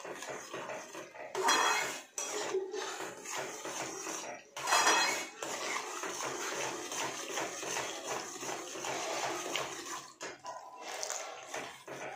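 Metal spoon scraping and clinking against a metal kadhai while stirring a thick, wet amaranth-flour sheera, over a steady sizzle from the hot mixture. The scrapes are loudest twice, about one and a half seconds in and about five seconds in.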